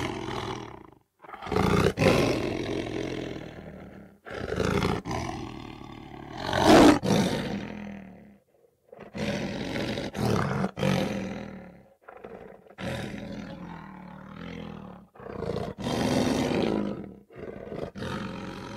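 Recorded big cat roars and growls, about seven in a row, each lasting one to three seconds with short pauses between.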